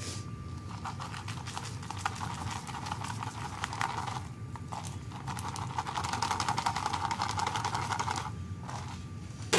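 Shredded cheese being pushed by hand out of a plastic bowl into a pot of soup: a dense, rapid crackly rustling, with a short pause about halfway through, that stops near the end.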